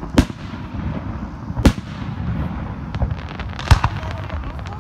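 Aerial firework shells bursting: three sharp bangs at a few seconds' spacing, the loudest near the end, with a few smaller cracks just before it, over a steady background rumble.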